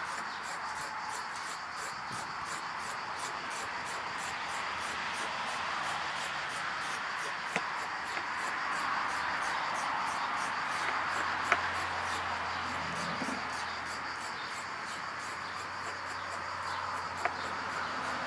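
Insects chirping steadily in a rapid, even pulse, with three sharp taps of a knife on a wooden cutting board as a carrot is sliced.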